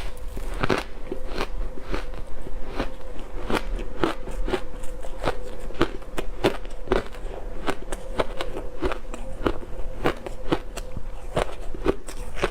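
Close-miked crunching of ice being bitten and chewed, a steady run of sharp, crackly crunches about two a second.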